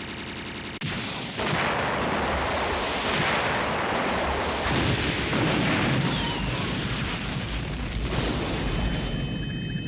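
A rapid, continuous barrage of explosion sound effects that starts suddenly about a second in, with a further blast near the end. A steady high-pitched whine comes in just before the end.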